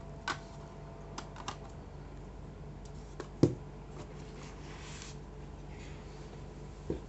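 Scattered light clicks and taps from hands handling a smartphone box and phone, the loudest about three and a half seconds in, with a soft brushing slide of cardboard near five seconds.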